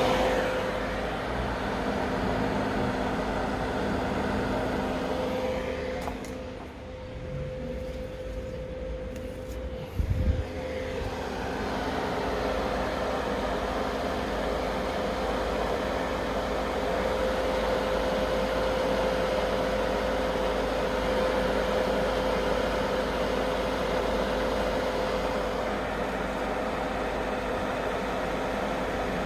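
A 1995 Hyundai Galloper turbodiesel runs with a steady mechanical noise and a constant hum. The level dips briefly, and there is a short knock about ten seconds in.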